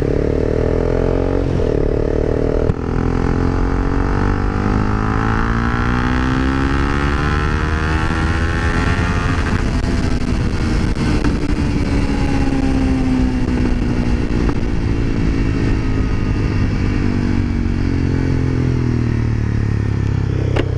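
Honda CBR300R single-cylinder engine running as the bike is ridden, its note climbing steadily for about nine seconds and then falling away and levelling off.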